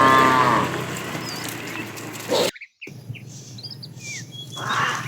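Cows mooing: one moo trails off at the start, and another begins near the end. Birds chirp in between, and the audio cuts out briefly about halfway.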